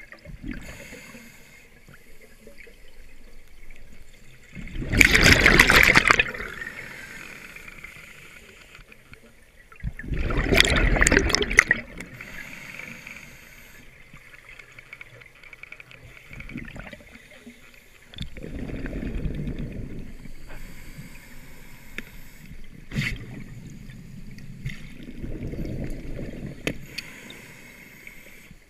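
Scuba diver breathing through a regulator, heard underwater: two loud rushes of exhaled bubbles about five and ten seconds in, then two quieter, duller breaths later on.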